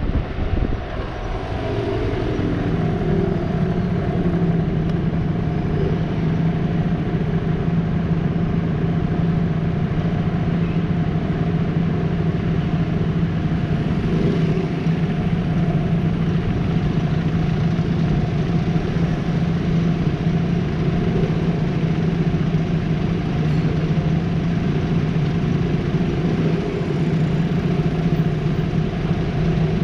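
Aprilia SXR 50 scooter engine settling to idle as the scooter comes to a stop, then idling steadily.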